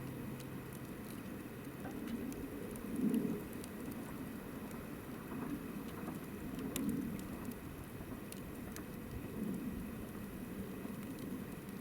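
Wood campfire crackling, with scattered sharp pops and snaps over a soft low rumble of flame.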